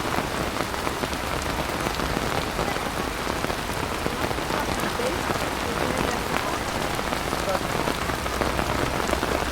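Steady pouring rain falling on a hard surface, a dense even hiss with many separate drop impacts heard through it.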